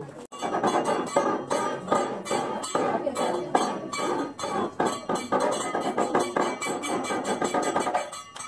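Kathakali accompaniment music: rapid metallic clinking strikes, several a second, in a fast steady rhythm over pitched instrumental or vocal sound. It starts just after the beginning and drops away near the end.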